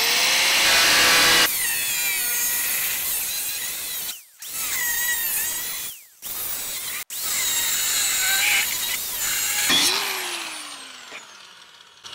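Corded angle grinder with a cutoff wheel cutting through the steel side of a dump truck bed, spinning up at the start and cutting with a whine, broken by a few short sudden stops. About ten seconds in it is let off and spins down with a falling pitch.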